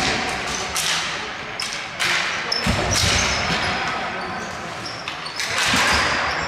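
Ball hockey play: sticks clacking and striking the ball in a run of sharp knocks, with heavier thuds about two and a half seconds in and again near the end, and players' voices calling out.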